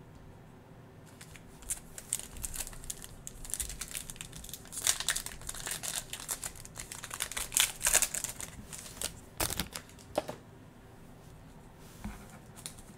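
A foil trading-card pack of 2021 NFL Mosaic being torn open and crinkled in the hands: a dense run of crackling that swells in the middle and stops about ten seconds in.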